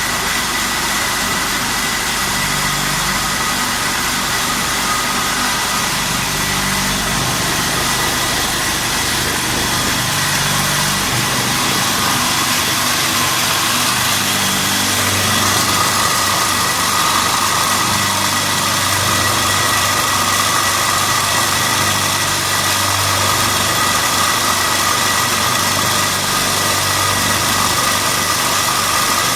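Concrete T-beam production machinery running steadily, a constant mechanical hum with a high whine; a further tone grows stronger about halfway through.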